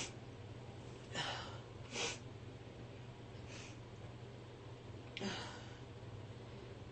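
A person's breathing after a sneeze: short, breathy puffs about one and two seconds in, a faint one midway, and a sharper, longer breathy burst about five seconds in, over a low steady hum.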